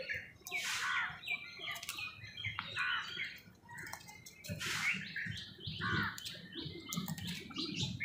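Birds calling: house crows giving short harsh caws among a busy mix of quick chirping notes, with a run of rapid repeated calls in the middle.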